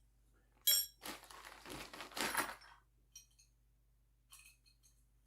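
Hose fittings being handled: a sharp clink, then about two seconds of scraping and rustling as a fitting is taken off, followed by a few light clicks.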